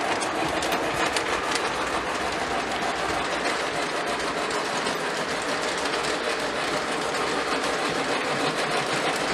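Lionel O27 model train running on tubular three-rail track: a steady rumble and whir of the wheels and electric motor, with light ticking throughout.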